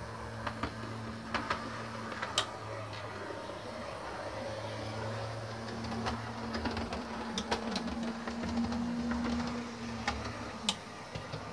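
Model railway train running on the layout, a model Class 128 parcels railcar: a steady low motor hum with scattered sharp clicks of the wheels over rail joints and points.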